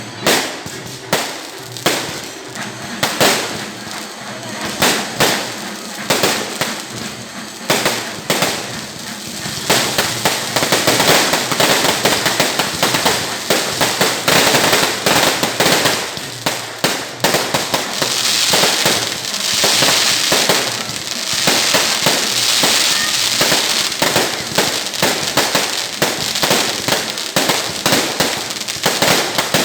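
Fireworks and firecrackers going off: separate sharp bangs at first, then about ten seconds in a dense, rapid-fire run of cracks that keeps going, with a hissing burst of crackle in the middle of that run.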